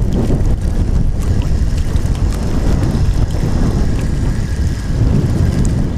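Wind buffeting the camera microphone: a steady low rumble with a few faint ticks over it.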